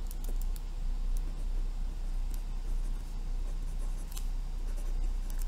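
Pen writing on a paper worksheet: light scratching strokes and small taps as numbers are written, over a steady low hum.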